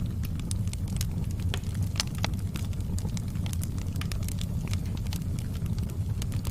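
Campfire burning, with frequent irregular crackles and pops over a steady low rumble.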